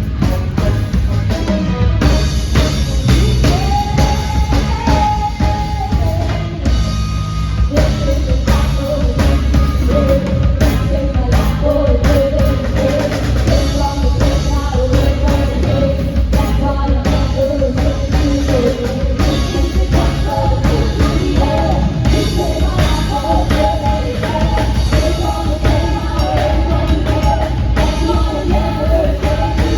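Rock band playing: a drum kit keeps a steady beat under a sung melody that comes in about three seconds in.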